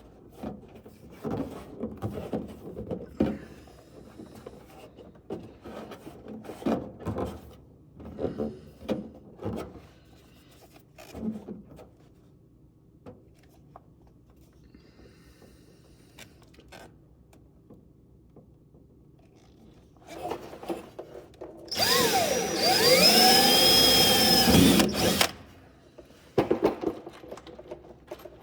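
Scattered knocks and scrapes of parts and hand tools being worked, then a power drill running for about three seconds near the end, its motor pitch rising and falling, followed by a few more knocks.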